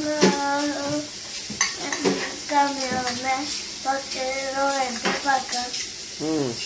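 A boy's voice making drawn-out, wordless sounds, with a falling glide near the end, over a metal fork clinking and scraping in a stainless steel bowl.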